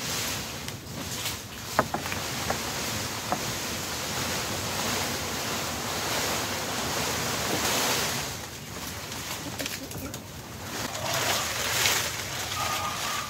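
Palm fronds rustling and scraping as they are handled and laid over a wooden log bed frame to line it, with a few light knocks in the first few seconds.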